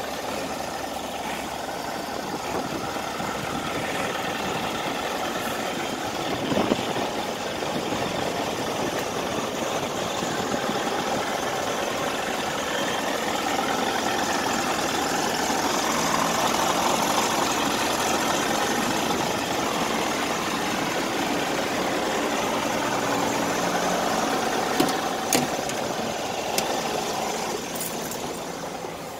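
Scania G400 tractor unit's diesel engine idling steadily, with a few light clicks and knocks. It gets quieter near the end.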